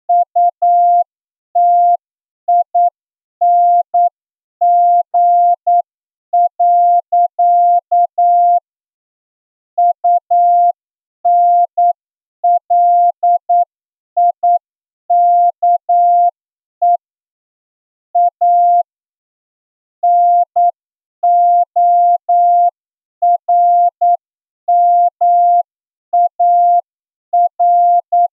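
Morse code sent as a single steady mid-pitched tone, keyed on and off in short dots and longer dashes with pauses between letters and words, at about 8 words per minute: a plain-language receiving test passage for an amateur radio licence exam.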